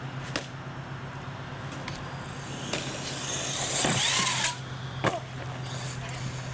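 R/C monster truck launching off a dirt jump ramp: its motor whine and tyre-on-dirt rush build to their loudest as it leaves the ramp, the whine swelling and falling in pitch, then cut off abruptly about four and a half seconds in. A sharp knock follows about half a second later as it comes down.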